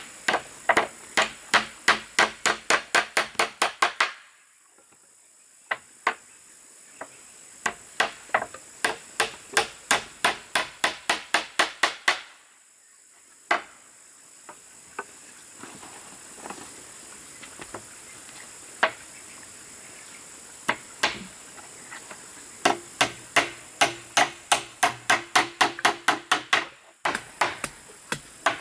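Quick runs of hammer blows, about four a second, driving nails into wood, broken by short pauses. Insects buzz steadily and high-pitched in the background.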